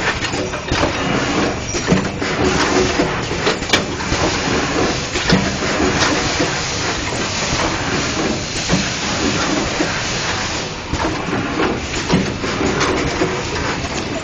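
LH 200 square-bottle screen printing machine running. Irregular clicks and knocks sound over a steady mechanical noise.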